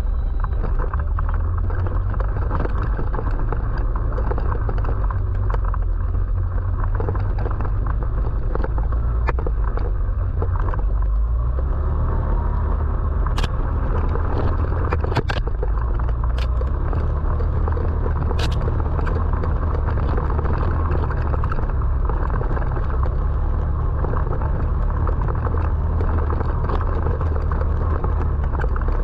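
Off-road vehicle riding along a trail: a steady low engine and wind rumble, with a few sharp clicks and knocks about halfway through.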